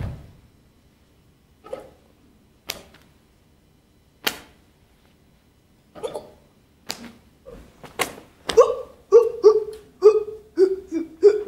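A woman's voice making short, sharp vocal yelps and gasps, a few scattered at first, then a rapid run of clipped cries in the last three seconds.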